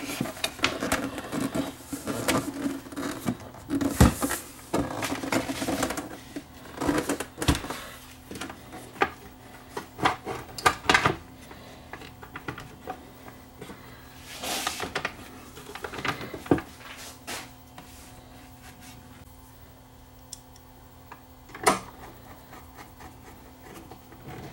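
Handling noise from a turntable being turned over and worked on: clicks, knocks and rustling, busy for the first half and again briefly past the middle, then sparse with one sharp click near the end.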